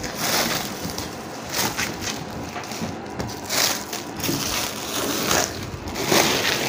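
Clear plastic wrap crinkling and rustling in irregular swishes as it is cut and peeled off a rolled-up mattress.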